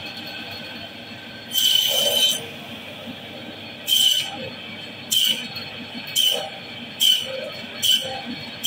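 Meat band saw running with a steady whine, its blade screeching each time it is fed through the boal catfish to cut a steak: one longer cut about a second and a half in, then five quicker cuts about a second apart.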